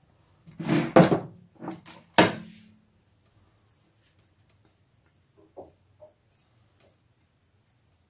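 Clunks of a metal saucepan and a ceramic plate being moved and set down on a wooden tray, the loudest about a second in and another just after two seconds; a few faint taps follow later.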